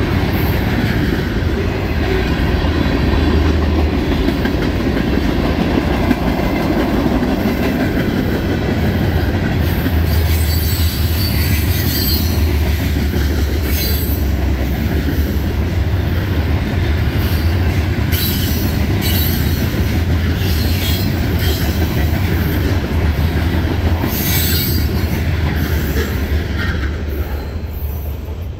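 Freight train cars rolling past close by: a steady low rumble of wheels on rail, with high wheel squeal coming and going and clicking over the rail joints.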